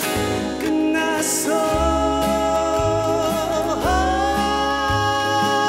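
A male voice singing a slow ballad to two strummed acoustic guitars. The line ends in a long held note that starts about four seconds in.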